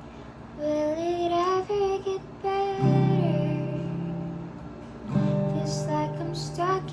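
A high female voice singing to acoustic guitar. The singing comes in about half a second in, and the guitar strikes a chord just under three seconds in and another about five seconds in, each left to ring under the voice.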